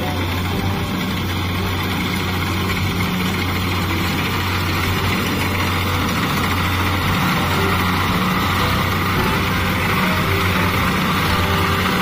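Kubota DC-70 combine harvester's diesel engine running steadily as the machine cuts rice: a continuous engine drone mixed with machinery noise, getting slightly louder toward the end.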